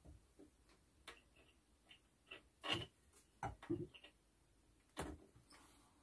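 Faint, scattered knocks and clicks of a wooden sign board being lifted and settled into place against workshop shelving, with a few louder knocks around the middle and about five seconds in.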